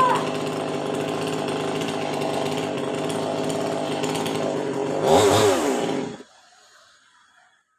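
Chainsaw engine running at a steady speed. About five seconds in it revs up briefly and falls back, then it cuts off suddenly, leaving near silence.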